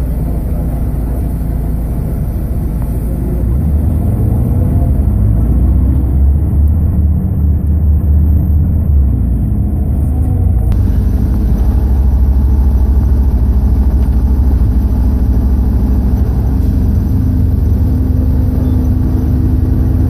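A car's engine and road noise heard while driving: a steady low rumble that grows a little louder a few seconds in and then holds even.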